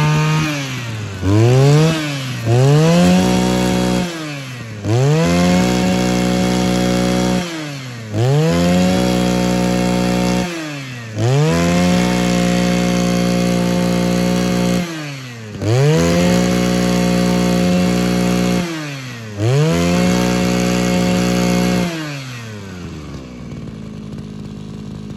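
Mitsubishi TL261 26cc two-stroke brush cutter engine revved repeatedly in a test run just after starting. The throttle is blipped up to high revs about seven times, each held for one to three seconds before dropping back, and the engine settles to a steady idle near the end.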